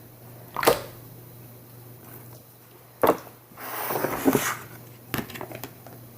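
Slime bowls and lids being handled: a sharp knock a little under a second in, another about three seconds in, then rustling and small clicks as containers are moved. A steady low electrical hum runs underneath.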